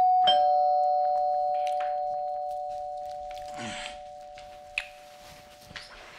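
Two-tone doorbell chime: a high ding and then a lower dong, both ringing on and slowly fading away. There is a soft thump about three and a half seconds in.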